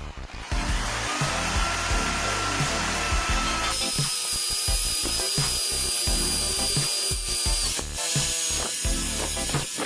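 A power tool running with a steady whine over background music with a beat. The whine jumps higher in pitch a few seconds in and fades away near the end.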